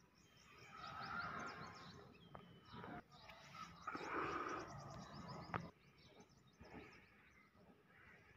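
Hand scraping and brushing through loose sand, with small birds chirping rapidly in the background during the first five seconds or so, and a sharp click about five and a half seconds in.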